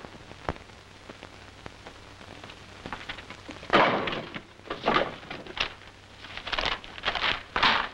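Rustling and scraping of wood being put into a fireplace, in a run of short, irregular noisy bursts from about four seconds in, over the steady hiss of an old film soundtrack.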